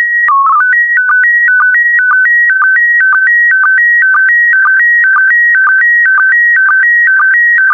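Slow-scan TV (SSTV) signal in PD120 mode: a loud electronic tone. It opens on the steady calibration leader tone, breaks into a short burst of lower tones for the mode's identifying code less than a second in, then turns into the image scan lines. Each line is a warbling tone stepping between a few pitches, marked by a short low sync blip about twice a second.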